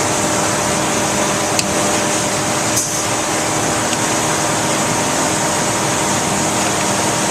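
Steady factory machinery noise with a constant hum, broken by a few light clicks.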